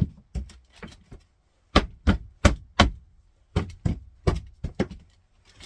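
Engineered hardwood floor plank being knocked sideways to seat it, in short runs of about four sharp knocks with brief pauses between. The plank's joint was not angled in enough and is not going home.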